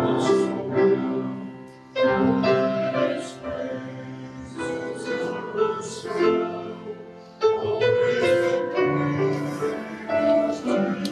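Singing with piano accompaniment, in sung phrases of a few seconds each: a hymn.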